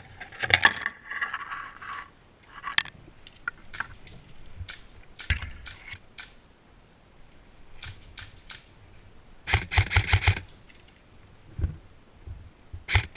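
Scattered sharp clicks and crackles, with a rapid run of about ten clicks a second lasting under a second, just before ten seconds in.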